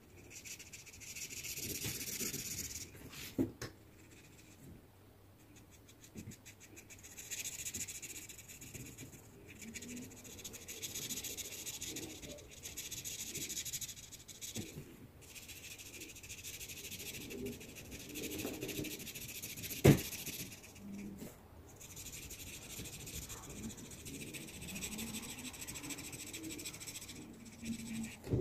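Felt-tip marker scratching on sketchbook paper, colouring in with rapid back-and-forth strokes in stretches of a few seconds at a time. A single sharp knock comes about twenty seconds in.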